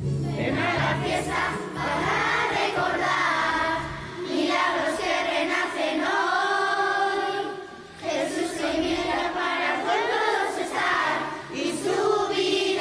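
Children's and teenage girls' choir singing together in phrases, with short breaks about four and eight seconds in.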